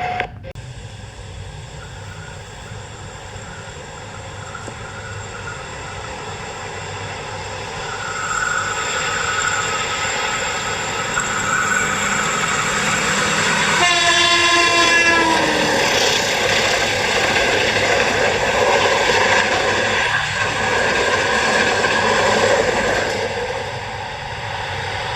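CC 201 diesel-electric locomotive passing with its train, the rumble of the train building from about a third of the way in. About halfway through the horn sounds one blast of about a second and a half, dipping slightly in pitch.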